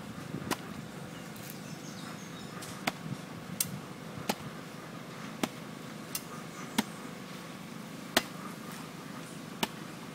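Machete chopping into a coconut husk: about ten sharp, short chops at an uneven pace, roughly one a second.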